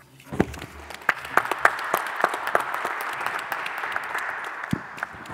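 Audience applauding: a dense patter of many hands clapping that starts just after the opening and thins out near the end.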